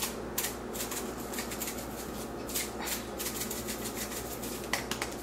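Garlic salt shaker being shaken over a pan: a run of quick, light ticks that come more sparsely toward the end.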